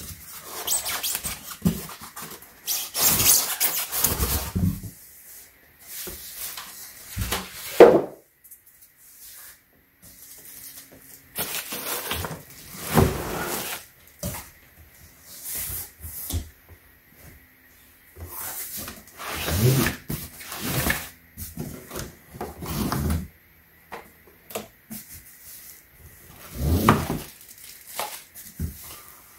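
Unboxing sounds: cardboard box flaps and plastic-wrapped packaging being rustled, scraped and shifted by hand in irregular bursts, with one heavy thump about eight seconds in.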